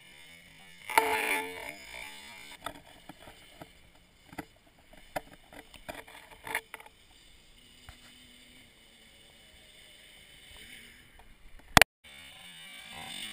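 Sport quad (ATV) engine revving briefly about a second in as the quad rides off, then fading to faint scattered ticks. Near the end a sharp click, then the quad's engine growing louder as it approaches.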